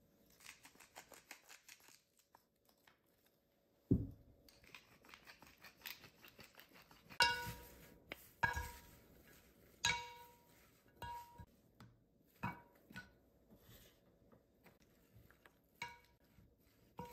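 Wooden salad servers tossing arugula leaves in a ceramic bowl: light leafy rustling, then repeated knocks of wood against the bowl, each ringing briefly. A single dull thump about four seconds in.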